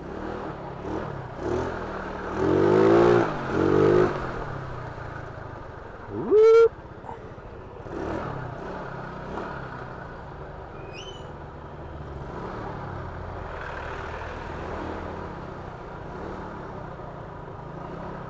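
Yamaha Mio Sporty scooter's single-cylinder four-stroke engine on its stock exhaust, running at low speed in stop-and-go traffic on a wet road, with other vehicles around it. Two louder swelling engine sounds come a couple of seconds in, and a short loud tone rises and then holds about six seconds in.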